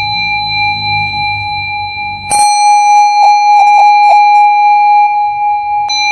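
A steady, high electronic tone held throughout. A click a little past two seconds in adds a brighter layer with a few short pulsing notes, and another click near the end returns it to the plain tone.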